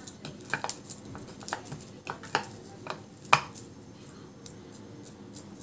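Hands kneading soft coconut barfi dough in a bowl, with scattered light clicks and knocks of fingers against the bowl; one sharper knock about three and a half seconds in.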